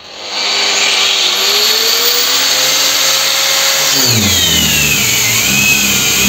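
PROCRAFT PW 1100 ES 125 mm angle grinder at its top speed setting, spinning up and then running steadily with a high whine. About four seconds in it is bogged down hard under load and its pitch falls sharply, but it keeps running at the lower speed: its constant-speed electronics hold it turning.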